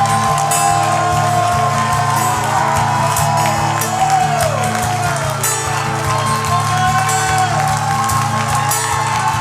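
Church band music with steady held keyboard chords and bass, while the congregation cheers and calls out in praise.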